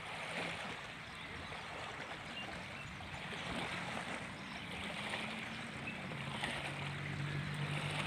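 Light waves lapping steadily at a reservoir shore, a soft continuous wash of water. A low steady hum runs underneath and shifts pitch about half a second in and again around six seconds.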